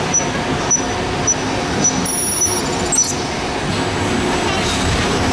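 Test Track ride vehicle running along its track, a steady rumble with light knocks about once a second.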